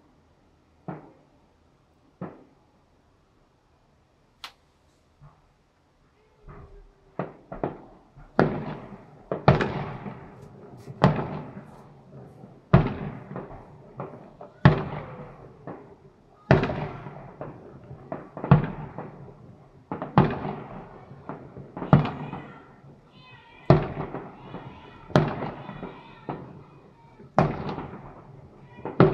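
Fireworks display: a few scattered single bangs, then from about six seconds in a steady run of loud shell bursts every second and a half to two seconds, each trailing off slowly. Crackling mixes in among them later on.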